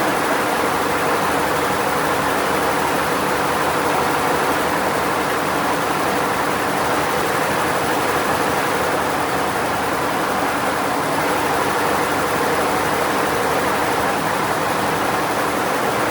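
Steady, even machine noise with a few faint constant tones running through it, unchanged throughout.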